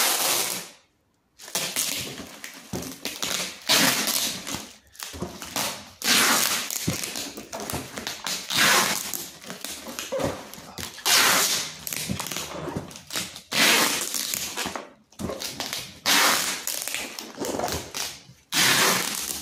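Clear packing tape pulled off the roll in long strips about eight times, roughly every two and a half seconds, and pressed onto a parcel wrapped in plastic film, with the plastic crinkling between pulls.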